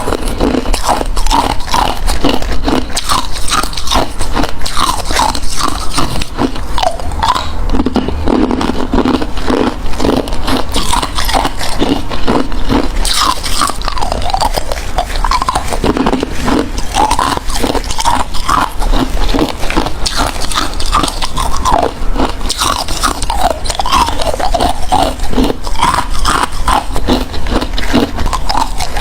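Close-miked chewing of ice: a person biting and crunching ice in dense, rapid crunches that run on without a break.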